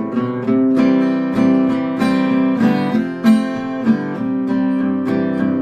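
Acoustic guitar strummed with a pick in a steady rhythm, changing chords a couple of times, with no singing.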